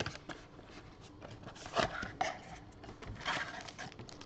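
A cardboard trading-card blaster box being opened and its stack of foil-wrapped card packs pulled out: scattered rustles, scrapes and light taps of cardboard and wrappers. The biggest come about two seconds in and again just past three.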